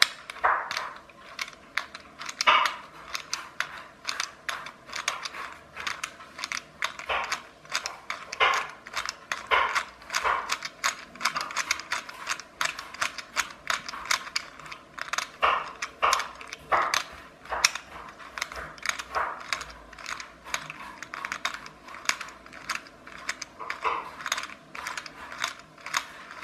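Clockwork toy car motor in a clear plastic housing clicking and ratcheting as it is worked by hand, in a dense, irregular run of sharp clicks, some louder than others. Its gearing has been roughened by sand that got inside.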